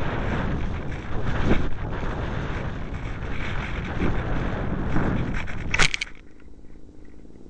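Airflow rushing over the onboard camera microphone of a discus-launch glider in gliding flight, swelling and easing. About six seconds in there is a short sharp scrape as the glider touches down in dry grass, after which the rush stops and only a quieter steady low hum remains.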